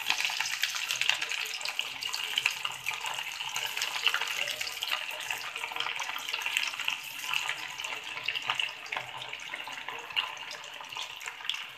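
Mutton keema tikkis deep-frying in hot oil: a steady crackling sizzle full of small pops, rising sharply as a tikki goes into the oil at the start and easing off slightly toward the end.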